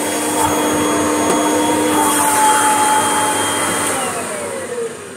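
Kirby vacuum cleaner running with its hose attachment drawn over a carpet mat, its motor giving a steady whine; about four seconds in it is switched off and the pitch falls as the motor winds down.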